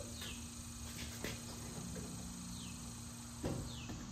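Short descending chirps from insects outside repeat every second or so over a steady low hum. A few light metal clicks sound about a second in, and a louder clank about three and a half seconds in, as the steel step frame is handled.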